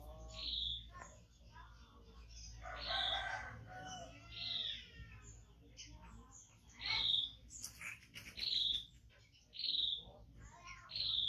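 Short high-pitched animal calls, each about half a second long, repeated six or so times at irregular intervals, with faint voices in between.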